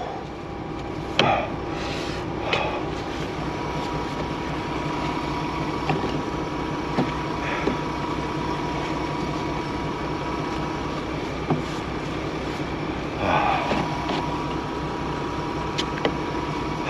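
Truck engine idling with a steady drone. A hand tool chipping and scraping packed snow and ice off the truck gives a few short knocks, a cluster of them loudest near the end.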